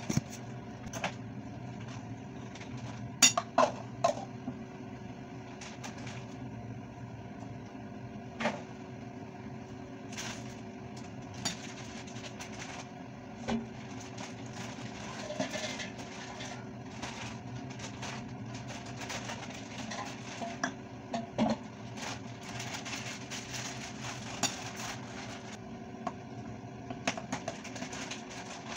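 A metal whisk and spoon clinking and scraping against a ceramic bowl while flour and water are mixed into a thick batter. The clinks come irregularly over a steady background hum, with a few louder knocks about three seconds in and again past twenty seconds.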